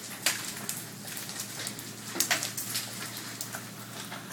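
Large hailstones, some near golf-ball size, pelting pavement, lawn and buildings: irregular sharp cracks several times a second over a steady patter, the loudest just after the start and another about two seconds in.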